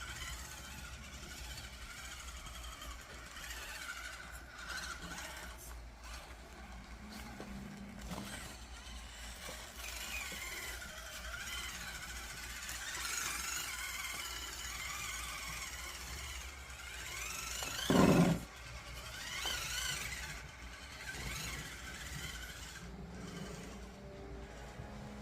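Scale RC crawler's electric drivetrain whining as it crawls, the pitch rising and falling with throttle. About 18 seconds in there is a brief, louder burst.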